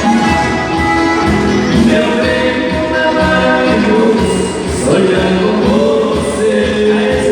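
Live band playing dance music, held melody notes over a continuous accompaniment.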